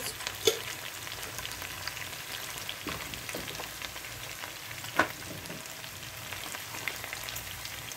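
Mutton and chicken pieces sizzling in hot oil in a pressure cooker, their released water cooked off, with ginger-garlic paste just added. A steady crackle with scattered small pops and two sharper clicks, about half a second in and about five seconds in.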